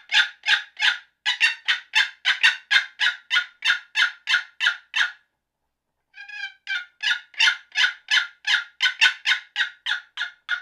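EHS Custom box turkey call run in a long series of loud, rapid yelps, about three notes a second, imitating a hen turkey. The yelping stops for about a second midway, then starts again.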